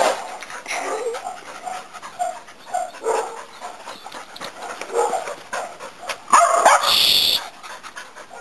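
Dogs whining and panting in short bits, with a loud sharp sound lasting about a second near the end.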